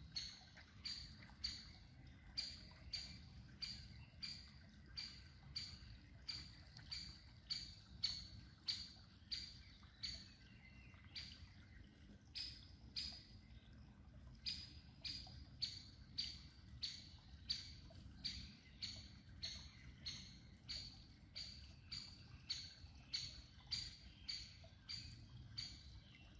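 A songbird repeats one short, sharp call about twice a second, very evenly and without pause, over a faint low background rumble.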